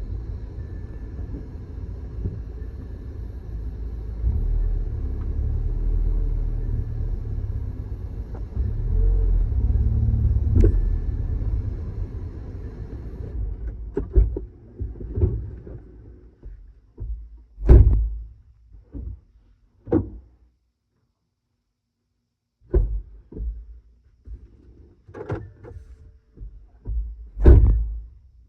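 Steady low road and engine rumble inside a moving Mini Countryman, with a single click about ten seconds in. About halfway through the rumble stops, and scattered separate thumps and clunks follow every second or two.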